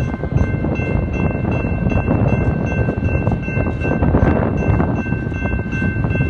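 Freight train of flatcars loaded with steel pipe rolling past, with heavy wind noise on the microphone over the rumble of the cars. A grade-crossing bell rings steadily throughout.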